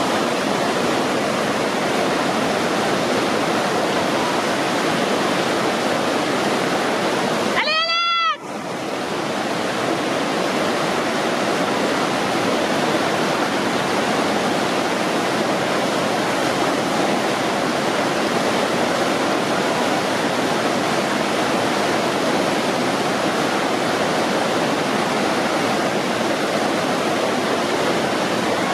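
Whitewater rapids rushing steadily. About eight seconds in, the water noise briefly cuts out and a short, high, rising-then-falling squeal sounds.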